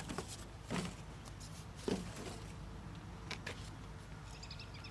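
Cardboard packing being handled and a chainsaw lifted out of its box: a few short knocks and rustles spread through. A bird chirps in quick repeats near the end.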